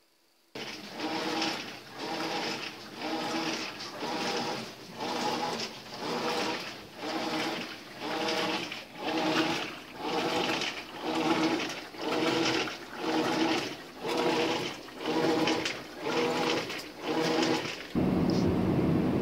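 Maytag washing machine running a wash cycle: water and clothes sloshing in a regular rhythm of about one surge a second, each surge carrying a motor hum. About a second before the end it gives way abruptly to a steady, louder vehicle cabin rumble.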